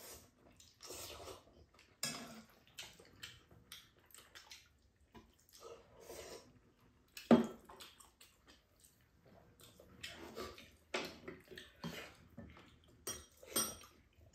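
Two people eating noodles: slurping and chewing, with chopsticks, spoons and a fork clinking and scraping against ceramic bowls and a pan. A sharp knock about seven seconds in is the loudest sound.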